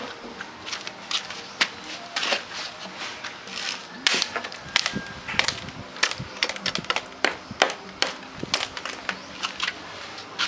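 Bolo machete chopping thin tree branches: a long run of sharp, uneven chops of the blade into the wood, coming faster and louder from about four seconds in.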